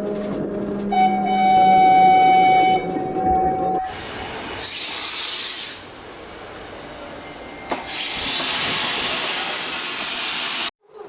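HO-scale model train sound decoder playing through its small onboard speaker: a steady horn-like tone for about two seconds, then two long bursts of hiss like steam being let off. The sound cuts off abruptly near the end.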